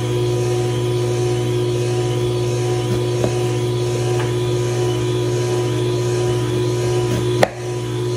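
Electric juicer's motor running with a steady hum, with light knife taps on a cutting board as pineapple is sliced and one sharper knock near the end.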